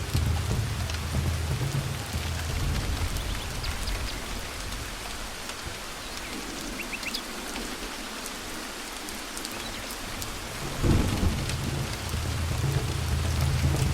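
Thunderstorm: steady rain with rolling thunder. The low rumble dies away in the middle, then a sharp thunderclap about eleven seconds in is followed by renewed rumbling.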